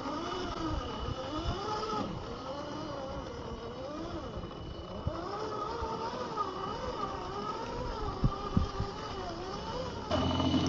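Scale RC crawler's 50-turn brushed electric motor and geartrain whining, the pitch rising and falling as the throttle is worked over rocks, with a couple of sharp knocks of tyres or chassis on stone. About ten seconds in the sound changes abruptly to a steadier, louder hum.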